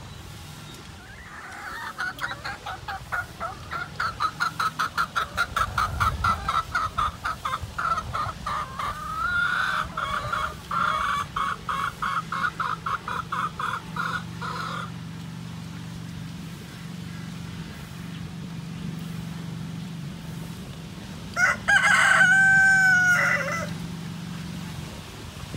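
Chickens calling: a long run of rapid clucking for over ten seconds, then a rooster crows once, loud and drawn out, near the end.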